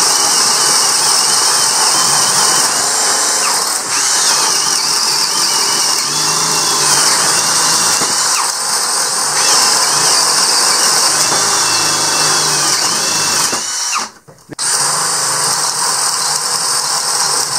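Cordless brushless drills, a DeWalt Atomic and a Hart 20-volt, boring 1-inch spade bits through 2x4 lumber: a loud, high-pitched motor whine mixed with the bits' cutting noise. The sound cuts out briefly about fourteen seconds in, then drilling carries on.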